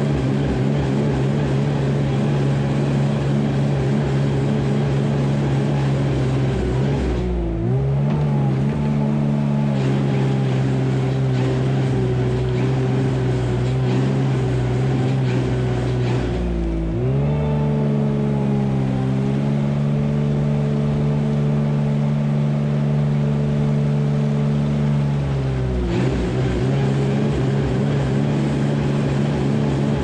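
Wheel loader's diesel engine working, its engine speed shifting several times as it drives with a load of manure: a brief dip about a quarter of the way in, a rise a little past halfway, and a drop back near the end.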